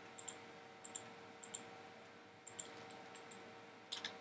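Computer mouse button clicking, about eight light clicks, several in quick pairs, as edges are picked one at a time. A faint steady electrical hum runs underneath.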